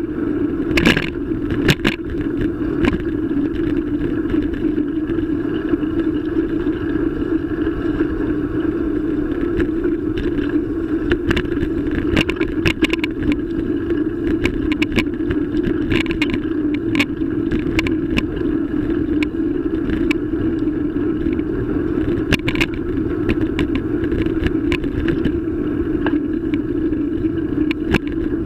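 Riding noise from a bicycle-mounted RideYe camera: a loud, steady hum and rumble from road vibration passing into the camera as the bike rolls over asphalt, with scattered sharp clicks and rattles from bumps jolting the mount.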